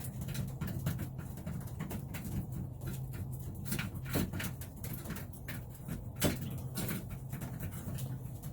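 Domestic racing pigeons in a loft: low cooing, with many sharp taps and clicks from the birds moving about.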